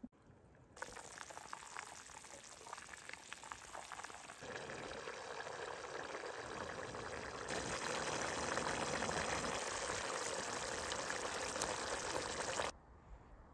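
Pot of vegetable soup bubbling at a rolling boil, a crackly fizzing that grows louder about four and a half and seven and a half seconds in, then cuts off abruptly near the end.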